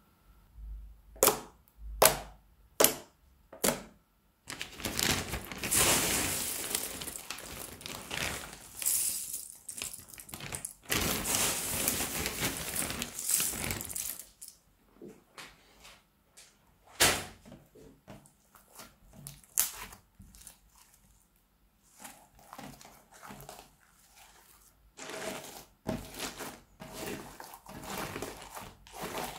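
Crunchy slime being worked by hand: small cut plastic straw pieces clicking and crackling as fingers press them into the slime and knead it. Four sharp clicks come in the first few seconds, then about ten seconds of dense crackling, then scattered clicks, with crackling again near the end.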